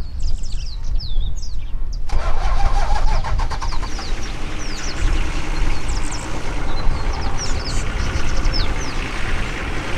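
A safari vehicle's engine starts about two seconds in with a quick run of even pulses, then runs steadily. Birds chirp throughout.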